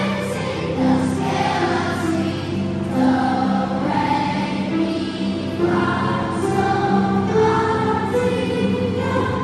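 School children's choir singing held, sustained phrases together, accompanied by an upright piano.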